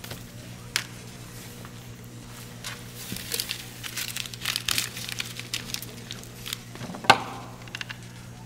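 Sheets of paper being shuffled and crumpled by hand: rapid crackling that is busiest in the middle, with a sharp knock about seven seconds in. A low steady hum runs underneath.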